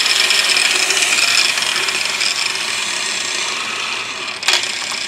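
Corded electric cutoff tool (angle grinder with a cutoff wheel) cutting the sheet steel of a 1935 Ford truck firewall: a steady, hissing grind with a thin whine. There is a brief sharp crack about four and a half seconds in.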